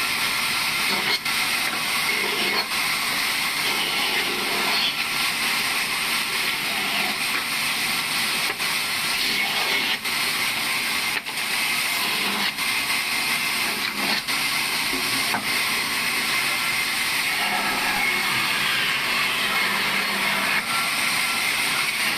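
Sawmill machine running with a steady, loud noise and occasional short clicks.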